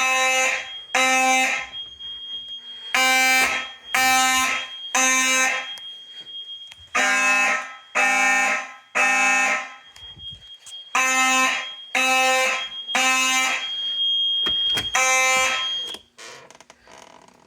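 Fire alarm horns sounding the temporal-3 (code 3) evacuation pattern: three half-second blasts a second apart, then a pause, repeated over and over, over a thin, steady high tone. The system is in alarm from a tripped heat detector, and the horns cut off about sixteen seconds in.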